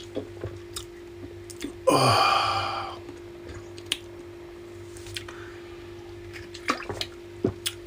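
A short burst of liquid sound, about a second long, roughly two seconds in, set among light clicks and knocks from kitchen handling, over a steady low hum.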